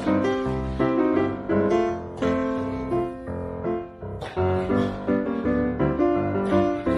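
Background piano music: chords struck in a steady rhythm.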